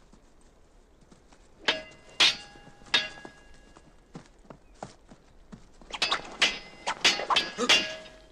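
Steel sword blades clashing: three ringing clashes spaced about half a second apart, then a quick flurry of clashes near the end, the last one ringing on.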